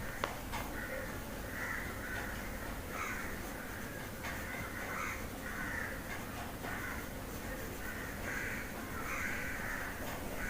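Crows cawing, a short harsh call repeated every second or so.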